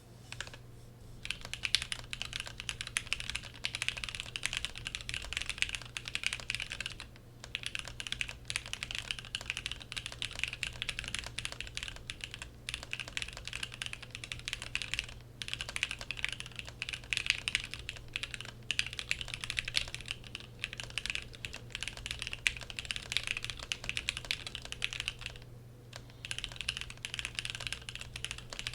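Fast, continuous typing on a custom mechanical keyboard: an AEBoards x Ivery Praxis R2 with a polycarbonate plate, Gateron Mini switches lubed with Krytox and CRP R4 keycaps. Three short pauses break the typing.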